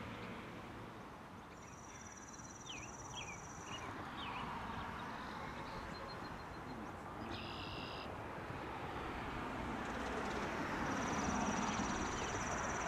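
Outdoor ambience of steady background noise, with small birds chirping and a high, thin buzz that comes twice for a couple of seconds each time.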